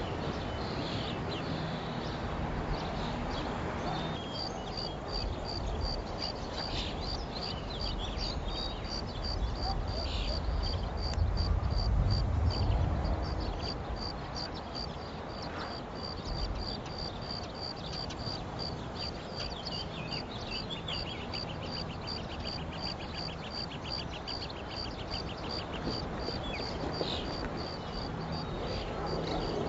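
Rural outdoor ambience with a high chirp repeating evenly, about two and a half times a second. A low rumble swells around the middle, and a brief faster trill comes later.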